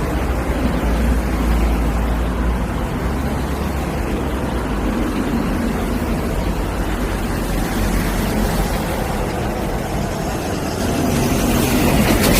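Cars driving on a road: a steady low rumble of engines and tyre noise, growing louder near the end.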